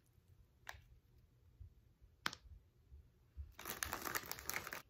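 Food packaging being handled: two light clicks, then about a second of crinkling and scraping near the end.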